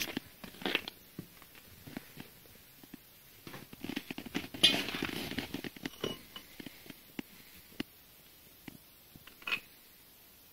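Irregular rustling and light clicks from someone moving about and handling things, with a longer, louder rustle about four to five seconds in and a single sharper click near the end.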